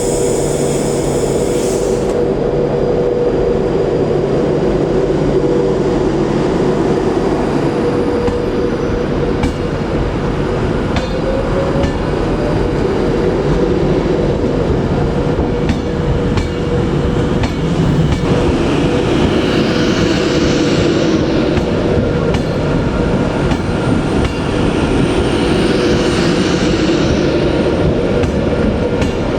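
Passenger train running steadily, heard from inside the carriage: a continuous rumble of wheels on rail with a steady hum.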